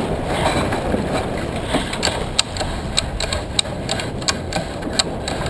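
Sheet winch ratcheting as the jib sheet is trimmed in after a tack: sharp, uneven clicks from about two seconds in, roughly three or four a second, over steady wind and water noise.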